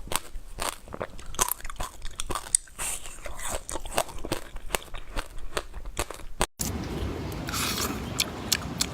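A person eating crunchy food close to the microphone: a rapid series of sharp biting and crunching clicks. About six and a half seconds in, the sound cuts out briefly and gives way to a steady hiss with a few scattered clicks.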